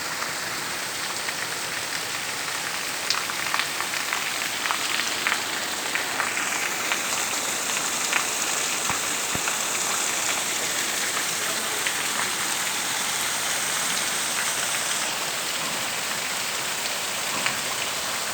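Heavy rain pouring steadily: a dense hiss with many scattered drops tapping close by.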